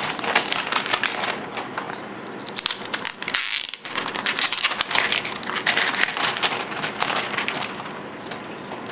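Clear plastic protective sleeve crinkling and crackling as it is peeled and slid off a new Nook Color e-reader, with a louder crackle about three and a half seconds in and quieter rustling near the end.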